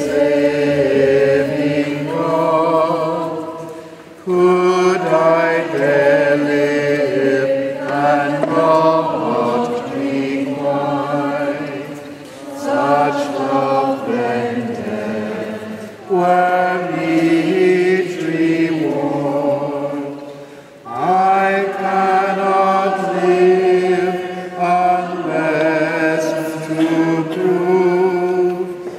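Voices singing a slow sacred chant in long phrases, with brief breaks between phrases.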